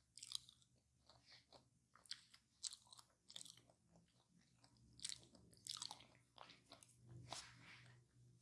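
A person chewing and biting a crispy fried pie, making an irregular run of sharp, crisp crunches.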